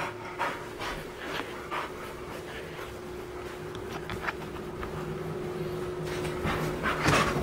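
Bull mastiff puppy panting, about two breaths a second, with a louder breath near the end.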